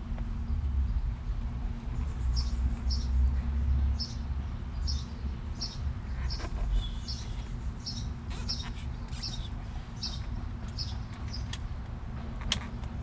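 A small bird repeating a short, high chirp over and over, a little more than once a second, over a low rumble. A sharp click near the end.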